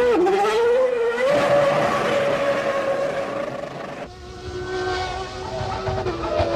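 1995 Formula One cars' engines at high revs: the engine note dips and climbs through gear changes, then holds high and slowly rises. About four seconds in, the sound switches abruptly to another car's engine running at steady revs.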